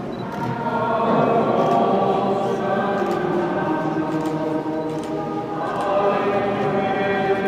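A choir singing slowly, with long held notes.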